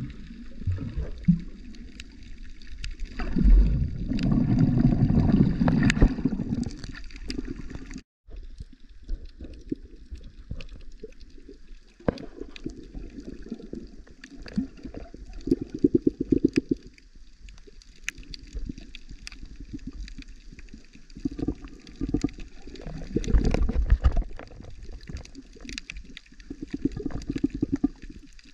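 Muffled underwater water noise picked up by a submerged camera: gurgling swells of rushing water about a second long, with scattered small clicks throughout. The sound cuts out for a moment about eight seconds in.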